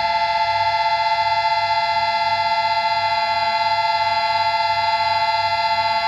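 Sustained guitar feedback drone in a metalcore recording: one steady, unchanging high tone with overtones, over a faint low pulse.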